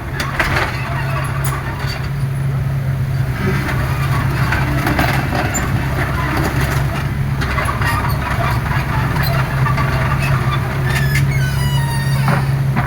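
Excavator's diesel engine running steadily, with occasional knocks and a brief squeal near the end.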